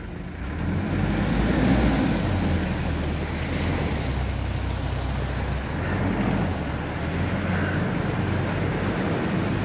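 A 4WD's engine running under steady load as it slowly drags a bogged vehicle out of mud on a recovery strap, a gentle pull rather than a snatch. The sound swells in the first second and then holds steady.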